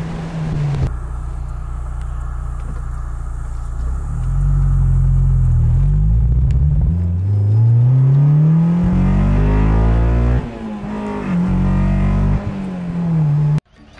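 Honda S2000 AP1's 2.0-litre four-cylinder engine running and being revved. The pitch climbs over several seconds, drops sharply about ten seconds in, rises again in a shorter rev, then cuts off abruptly near the end.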